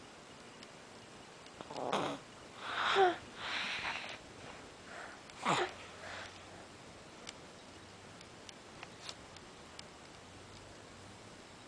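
Sleeping child snoring, with a cluster of loud, sniffly breaths through the nose about two to six seconds in, one or two ending in a short falling squeak, then quieter breathing.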